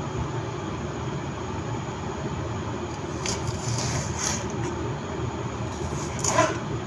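Small knife slicing a spring onion on a wooden cutting board: a few short sharp cuts about three to four seconds in and again near the end, over a steady low background rumble.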